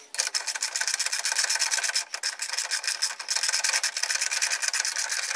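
Ratchet spanner clicking rapidly as it undoes a push-bar mounting bolt, with a short break about two seconds in.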